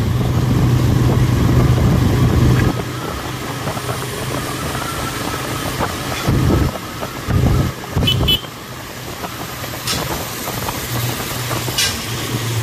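Motorcycle engine running while riding at a steady town cruising speed, heard from the rider's seat. Its low hum is strongest for the first few seconds, then eases off and stays quieter, with a few short low rumbles around the middle.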